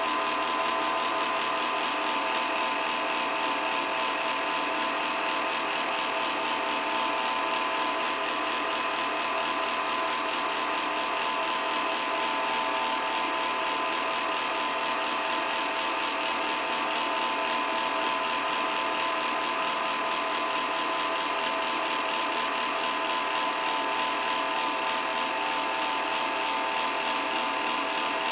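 8mm film projector running: a steady mechanical whir with a constant whine through it, unchanging throughout.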